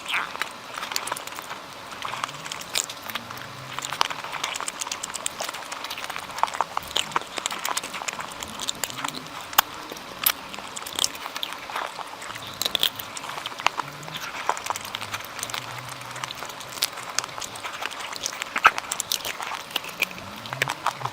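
Close-miked eating sounds: irregular wet clicks and smacks of a person chewing mouthfuls of curry and meat, with no speech.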